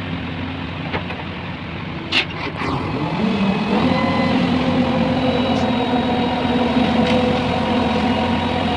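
A heavy construction vehicle's engine running, with a sharp clank about two seconds in. Then the engine revs up a little past three seconds and holds a louder, steady run with a whine.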